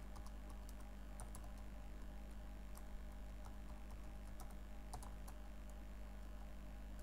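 Computer keyboard being typed on: irregular, scattered keystroke clicks, over a steady low hum.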